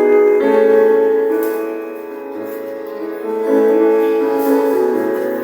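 Instrumental church worship music, held chords that change a few times and soften briefly in the middle.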